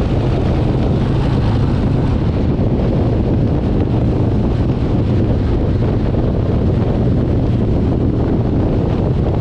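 Harley-Davidson Road King's V-twin engine running steadily at cruising speed, mixed with heavy wind rush on the microphone.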